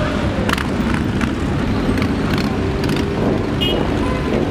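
Engines of a long column of motorcycles riding past in a continuous, dense rumble, with a few short sharp cracks over it.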